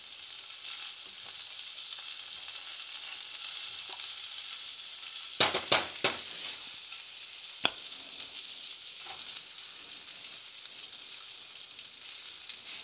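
Thin slices of guanciale sizzling gently in a pan as their fat renders over very low heat. A few sharp metal clinks of tongs against the steel saucepan come about five and a half to six seconds in, with one more a couple of seconds later.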